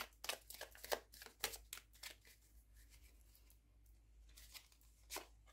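Faint shuffling of a small deck of cards in the hands: a quick run of soft card flicks over the first two seconds, thinning out, then a few isolated taps near the end.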